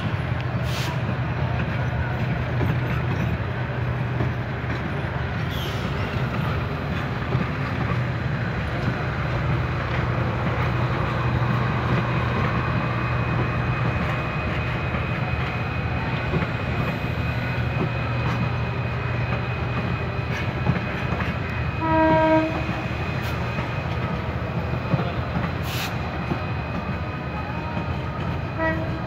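The passenger coaches of a Bangladesh Railway commuter train roll past on the track, a steady running noise of wheels on rails. About three-quarters of the way through, the train sounds a short horn blast.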